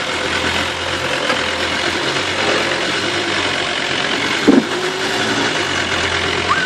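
Mercedes 300D five-cylinder diesel engine running steadily at low revs, heard from inside the Range Rover's cabin. A single loud thump about four and a half seconds in.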